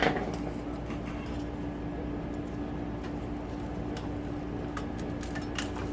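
Steady low hum of a running fan or machine in a small workshop, with a few faint clicks of small metal parts being handled in the second half.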